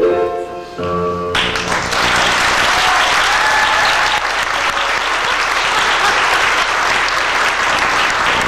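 Music ends about a second in, then an audience applauds steadily.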